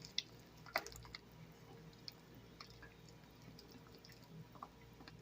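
A ladle stirring pork bone soup in a pot: faint liquid sloshing with scattered light clicks against the pot.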